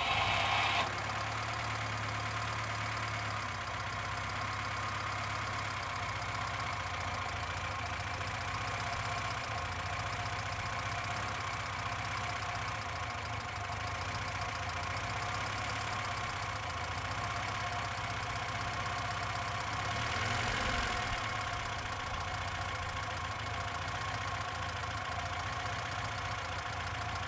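Lada 1200L Zhiguli's four-cylinder engine idling steadily just after starting. It is louder for the first second as it catches, and briefly louder again about twenty seconds in.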